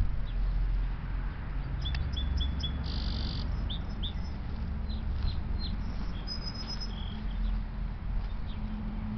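Small birds chirping in short, high calls, several a second from about two seconds in. Under them is a steady low rumble.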